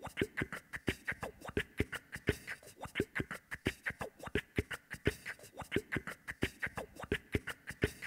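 Vocal beatboxing: a fast, unbroken rhythm of mouth-made kick-drum thumps and sharp snare and click sounds, several hits a second.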